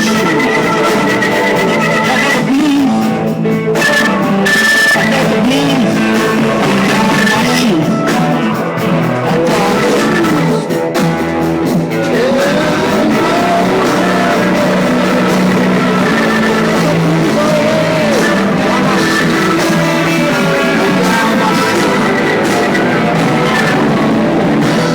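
A live band playing a blues-rock number led by electric guitar, with bending, sliding notes. It stops abruptly at the very end.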